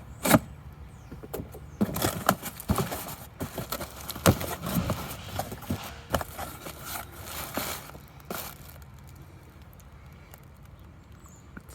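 A cardboard shipping box being opened and unpacked by hand: tape tearing and cardboard and packing crackling and scraping in quick irregular clicks and rustles, dying down to quieter handling over the last few seconds.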